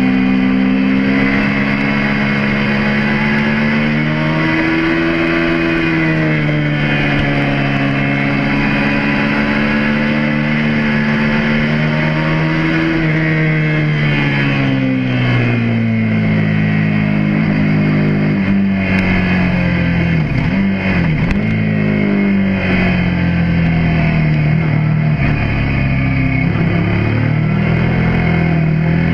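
Suzuki SV650S's V-twin engine heard from a camera mounted on the bike, its pitch rising and falling as the rider accelerates and shifts. From about halfway through the revs slide down for several seconds before climbing again near the end.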